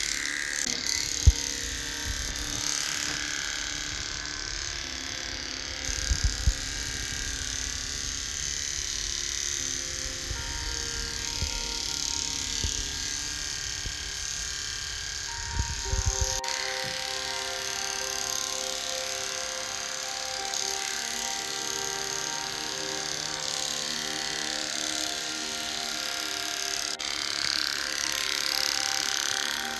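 Electric pet clippers buzzing steadily as they shave a dog's matted coat down to the skin, with a few knocks and handling bumps in the first half.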